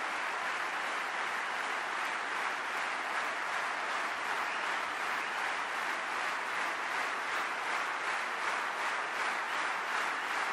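Large concert audience applauding steadily, a dense wash of many hands clapping. Near the end the clapping begins to fall into an even beat of about three claps a second.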